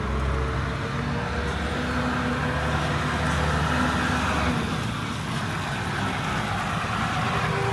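A motor vehicle's engine running, with steady low humming tones under a constant hiss, growing louder near the end.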